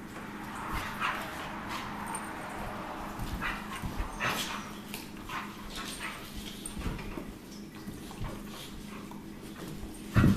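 A pit bull puppy and an adult pit bull play-fighting, with whimpers, yips and short barks over scuffling and clicking on the bed and tile. There is one louder, low burst near the end.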